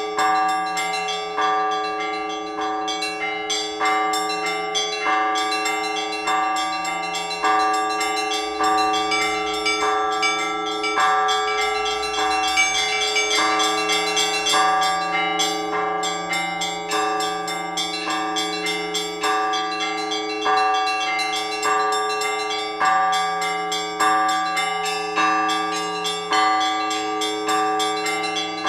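Orthodox church bells rung together in a peal: bells struck in a steady rhythm about once a second, each stroke ringing on over the hum of the larger bells.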